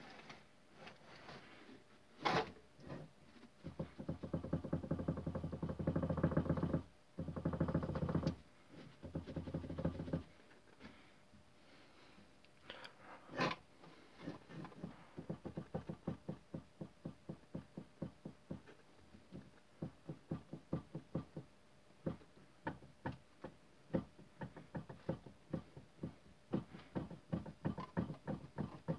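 Toyota Corolla steering rack knocking: a dense, fast rattle of knocks for several seconds, then a steady run of separate knocks about three a second. The knock is the sign of play in a worn steering rack.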